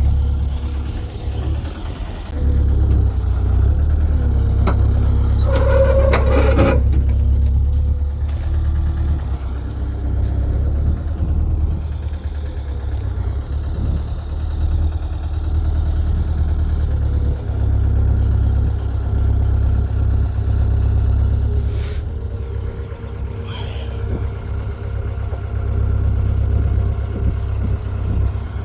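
Engine running with a steady low rumble, heavy machinery at work. About six seconds in there is a brief louder, higher-pitched noise.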